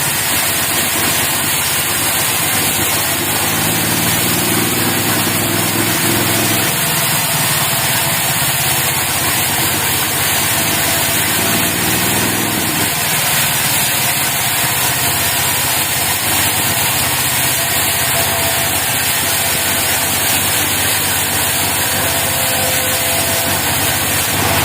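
Portable band sawmill's engine running steadily. Its engine note stands out more clearly and shifts in pitch for several seconds early on.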